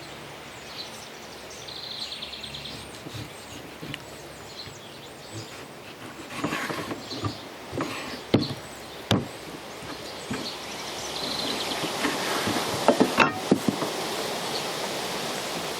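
A knife cutting a piece of beef strip loin on a cutting board, with several sharp knocks of the blade against the board from about six seconds in. Under it is steady outdoor background noise with a few high bird-like chirps.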